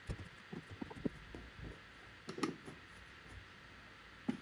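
Faint, scattered clicks and light knocks of hands working parts while a new NTC sensor is fitted into a tumble dryer's condenser housing, the footage sped up. The loudest knocks come about a second in, about two and a half seconds in, and near the end.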